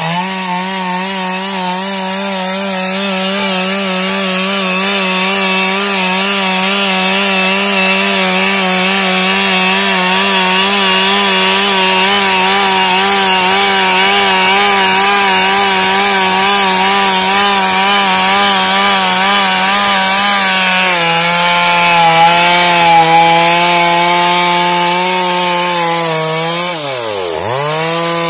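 Stihl two-stroke chainsaw at full throttle ripping a log lengthwise, its engine note wavering slightly under the load of the cut. About two-thirds through the pitch drops a little, and shortly before the end the engine speed dips sharply and climbs straight back up.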